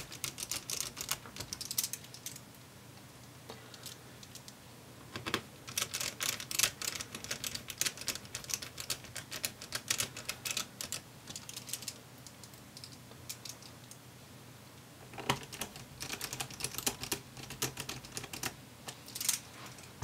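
Small Phillips screwdriver driving screws into a laptop battery, making quick runs of small clicks in three spells, one for each screw being refitted.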